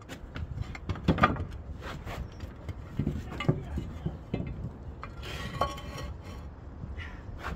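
Building materials being handled during roofing work: irregular hard knocks and clinks.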